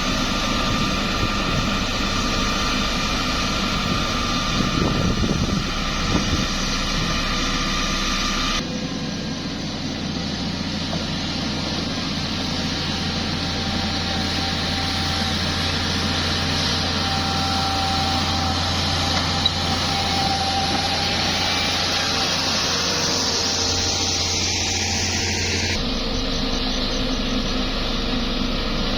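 Heavy road-construction machinery running steadily, the diesel engines of grading and compaction equipment working on a laterite sub-base. The sound changes abruptly twice, about 9 and 26 seconds in.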